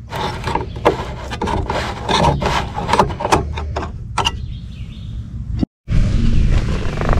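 A screwdriver prying the lid off a metal paint can: a run of sharp metal clicks and scrapes as the tip is worked around the rim and the lid pops loose. After a short break about six seconds in, a steadier rustling noise.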